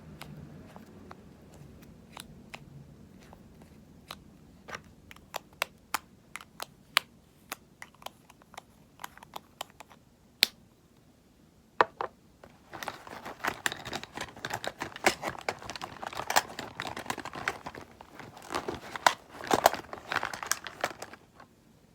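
Cosmetic items handled close to the microphone for ASMR. A run of sharp, separate clicks and taps comes first, with two louder single clicks past the middle. From about thirteen seconds in there are some eight seconds of dense crinkling and rustling.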